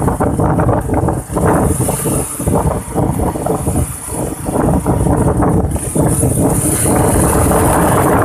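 A vehicle running on the road, with a low, uneven rush of wind buffeting the microphone and a faint steady engine hum.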